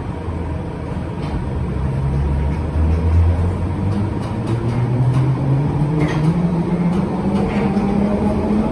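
London Underground 1972 Stock train running, its traction motor whine rising steadily in pitch from a few seconds in as the train accelerates, over a steady low rumble.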